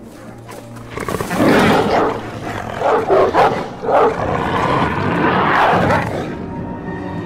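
Creature sound effects of mutant attack dogs, loud animal snarls and roars over film score music, loudest from about a second in until about six seconds.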